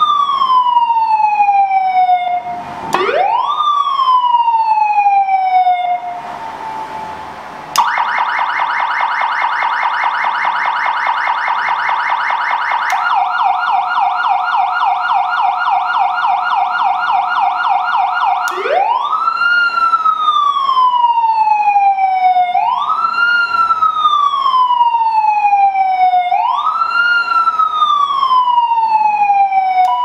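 CJB-H seven-tone electronic vehicle siren being switched through its tones. First comes a wail that rises and falls slowly, then a short burst of hiss about six seconds in. A rapid warble of quick up-and-down tones follows and changes pattern about thirteen seconds in. From about eighteen seconds it is a repeating wail that rises quickly and falls slowly, about every four seconds.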